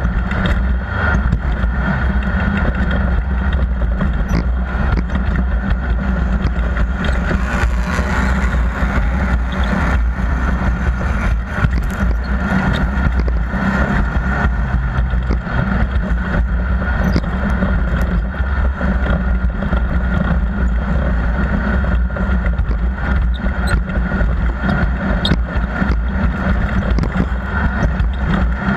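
Off-road race vehicle's engine running steadily under a constant loud drone, with many small clicks and knocks through it.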